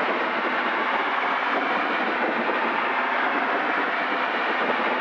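Steady engine, propeller and wind noise inside the cabin of a Zenith CH750 Cruzer light aircraft in flight, an even rush with no change in level.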